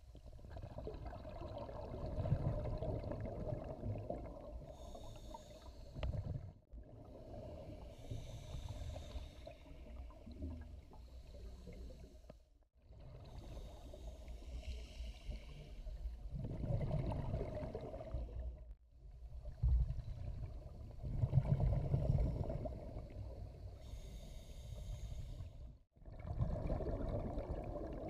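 Scuba diver breathing through a regulator underwater: each inhalation hisses and each exhalation gurgles out as a rush of bubbles, in slow cycles about six seconds apart.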